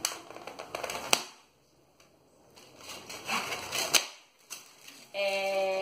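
A stiff white disc being bent and snapped into pieces by hand: crackling with three sharp snaps, about a second in and again near four seconds. Near the end, a short held hum from a voice.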